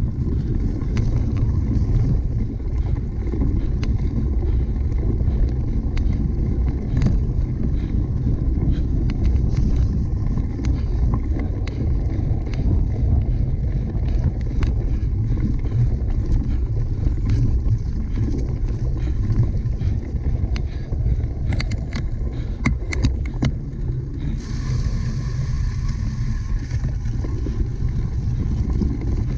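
Cyclocross bike being ridden on a race course: steady low rumble and wind buffeting on the microphone, with a cluster of sharp clicks and rattles about twenty-two seconds in. A higher hiss joins for the last five seconds.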